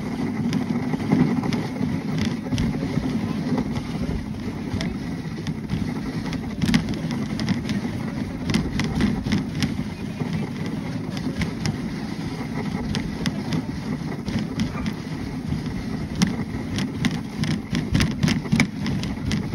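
A dog sled running over a packed snow trail: a steady rushing rumble from the runners, with scattered sharp clicks and knocks that come more often in the second half.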